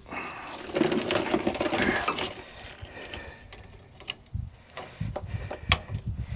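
Rapid mechanical clicking and rattling of tools on metal brake hardware for about two seconds, then a few separate clicks and one sharp click near the end.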